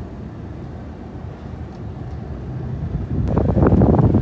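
Wind rumbling on the microphone over a low, steady rumble, growing louder about three seconds in.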